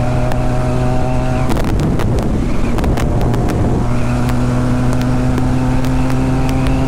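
Benelli TNT 300's parallel-twin engine at a steady high-speed highway cruise, a steady drone whose pitch creeps slowly upward. Starting about a second and a half in, rough rushing noise with scattered clicks covers it for about two seconds, then the drone comes back.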